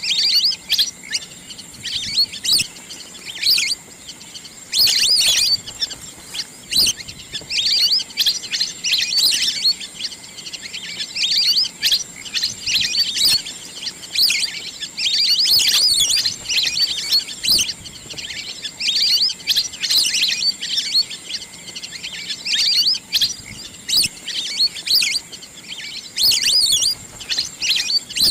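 Wild duck calls: a fast, continuous run of high-pitched chirps and whistles in bursts, with short gaps between them.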